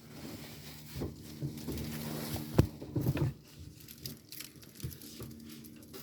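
Rustling and handling noise with scattered light knocks and a sharp click about two and a half seconds in, over a steady low hum.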